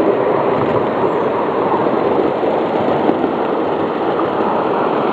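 A 7.5 inch gauge ride-on miniature train running along its track: a steady noise of the train and its wheels on the rails.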